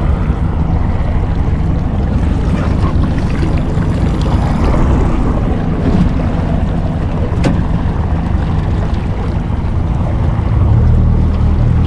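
Outboard motor of a small jon boat running steadily under way, with wind on the microphone. There is one sharp click about seven and a half seconds in, and the motor grows louder near the end.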